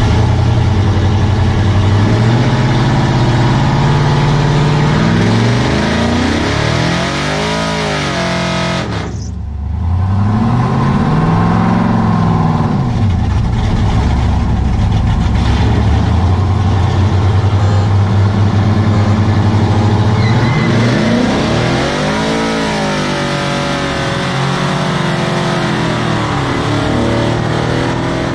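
Loud V8 engines of a cammed Silverado pickup and a Charger R/T running hard in a street race, revving up and down in repeated pulls that rise and fall in pitch. The sound briefly dips and dulls about nine seconds in.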